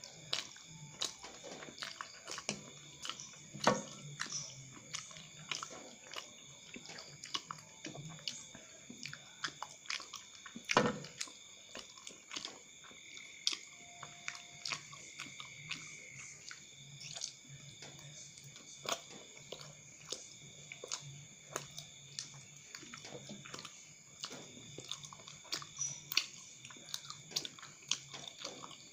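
Close-up mouth sounds of a person chewing chewy cilok tapioca balls coated in sambal, with wet smacking and many short sharp clicks, the loudest about four and eleven seconds in.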